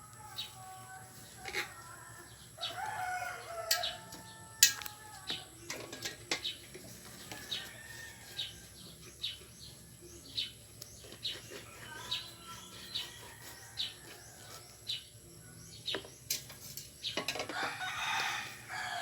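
Chickens clucking, with a rooster crowing about three seconds in, over scattered sharp clicks and knocks. A louder, rougher sound comes near the end.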